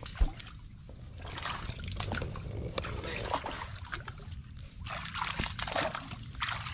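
Footsteps wading through shallow water and mud among mangrove roots, with uneven sloshing and splashing and a single thump just after the start.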